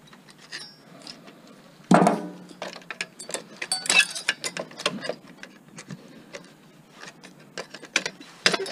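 Hand work on a desktop computer being stripped for scrap: a sharp, loud hit about two seconds in that rings briefly, then a run of clicks, snaps and metallic rattling as plastic corners and tabs holding the heatsink are broken off.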